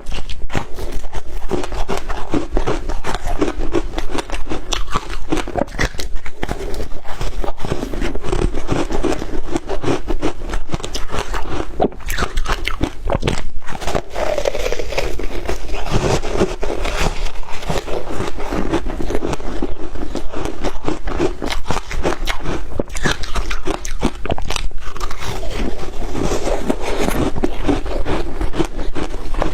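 Shaved ice being bitten and chewed, a continuous dense crunching and crackling of ice breaking between the teeth.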